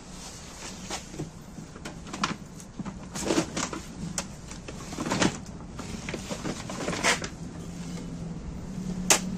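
Hands handling a small Samsung laser printer in a shopping bag: irregular plastic knocks and clicks from its casing and cover, with rustling of its plastic wrapping. The loudest, sharpest knock comes about a second before the end.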